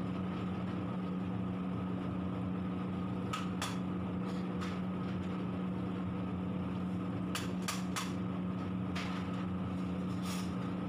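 A steady machine hum, with a ladle knocking and scraping against a large metal cooking pot several times in small groups as a boiling curry is stirred.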